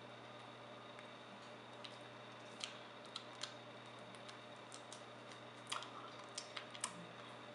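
Faint scattered taps and clicks of hands striking and brushing each other while signing in Auslan: a few about halfway through and a quick cluster near the end, over a steady low hiss and hum of room tone.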